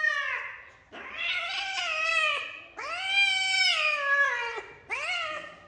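Kitten meowing: the end of one call just after the start, then two long, drawn-out meows and a shorter one near the end, each falling in pitch as it ends.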